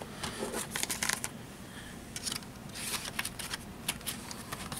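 Rustling and light clicking of DVD cases and paper inserts being handled and put down, in short scattered bursts.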